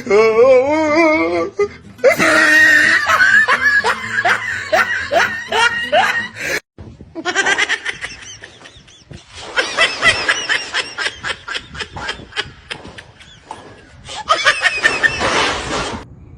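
People laughing hard, in quick rhythmic bursts. The laughter breaks off suddenly about halfway through and starts again.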